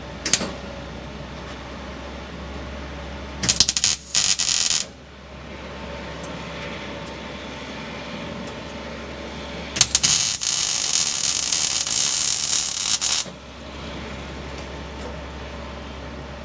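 Arc welding on a cracked sheet-metal belt guard: crackling runs of welding arc. There is a brief one just after the start, one of about a second a few seconds in, and a longer one of about three seconds in the middle, over a steady low hum.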